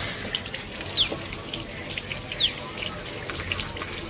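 Water running from an outdoor tap and splashing into a concrete trough as someone drinks from the stream. A bird gives a short high falling whistle twice, about a second and a half apart.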